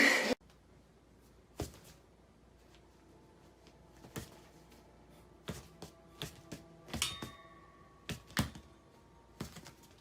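Scattered light knocks and clicks, about eight in all, over quiet room tone, with a brief ringing tone about seven seconds in.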